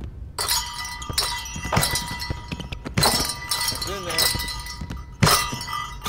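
Basketballs striking steel hoop rims one after another, each clang leaving the rims ringing, mixed with balls thudding on the hardwood floor. There is a string of sharp strikes, the loudest a little after five seconds in.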